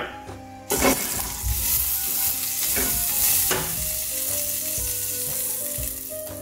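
A small meatball patty sizzling in olive oil in a stainless steel skillet. The sizzling starts abruptly about a second in, holds steady, and eases off near the end.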